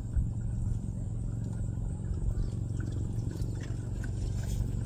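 A steady low motor hum, with faint light ticks over it.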